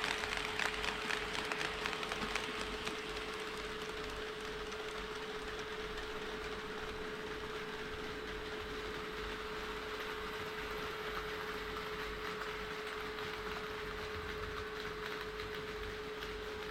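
HO-scale model train running on sectional track: a rolling hiss with fast clicking of wheels over rail joints, loudest for the first few seconds, then settling to a steady run. A constant steady hum lies under it.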